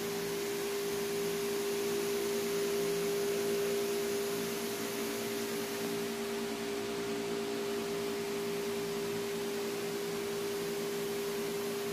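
A steady humming tone at one pitch over a constant hiss, unchanging throughout.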